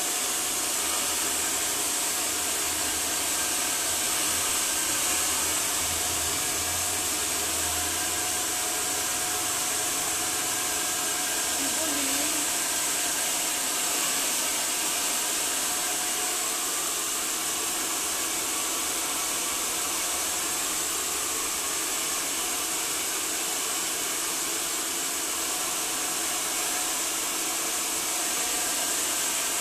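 Handheld hair dryer running steadily, a constant airy hiss with a faint whine, blow-drying long hair straight during a Brazilian straightening treatment.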